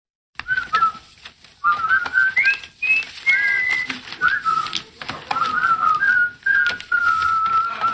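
Whistling: a string of short, wavering whistled notes that hop up and down in pitch, then one longer held note near the end.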